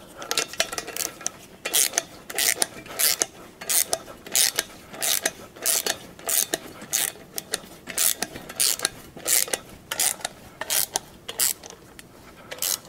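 Hand socket ratchet clicking in quick back-and-forth strokes, roughly two a second, as the exhaust manifold bolts on a 351 Cleveland V8 are run down before torquing.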